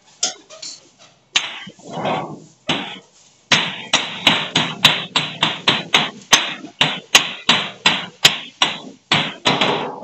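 Repeated blows on the galvanized sheet-metal flue pipe of a water boiler's exhaust: a few scattered knocks, then from about three and a half seconds in a steady run of about three strikes a second, each ringing briefly.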